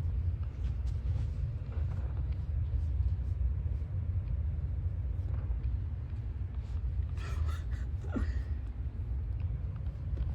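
A steady low rumble, with a short high-pitched cry about seven seconds in.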